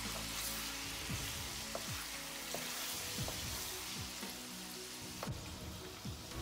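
Chicken pieces sizzling steadily as they fry in hot ghee in a karahi, stirred with a wooden spatula that gives a few light knocks against the pan.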